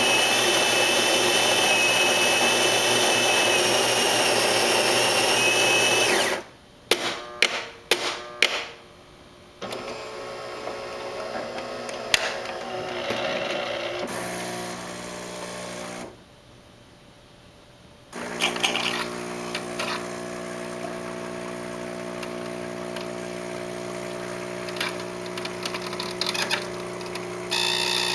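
Saeco Vienna Plus super-automatic espresso machine working through a cup. For about six seconds there is a loud, steady mechanical run with a high screech in it, then a few sharp knocks. A quieter working stretch follows, then a short pause and a steady hum. The screech is the recurring fault the owner takes as a sign of a problem in the machine.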